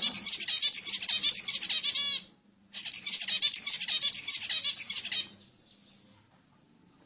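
Zebra finch song: two quick bouts of rapid, repeated high notes, separated by a short pause about two seconds in, the second ending about five seconds in.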